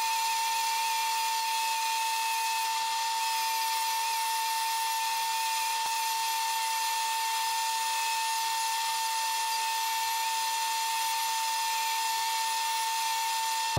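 Die grinder with a 2-inch grinding disc running at high speed, grinding down weld in an inside corner of steel tubing: a steady high-pitched whine with a hiss over it and no change in pitch.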